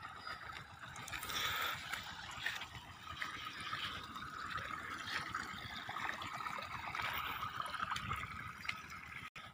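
Irrigation water trickling steadily into a flooded rice paddy, with a faint high steady tone over most of it.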